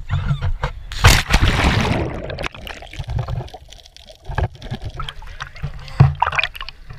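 A person jumping off a pier into the sea, heard through the waterproof action camera she holds: a loud splash about a second in, then a muffled stretch underwater, and another sharp splash about six seconds in as she and the camera break the surface.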